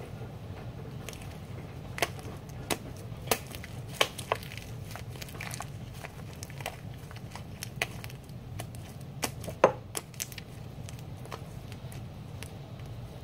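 Shaving-cream slime being squeezed, folded and pulled apart by hand, making irregular sharp pops and crackles, with a few louder pops scattered through.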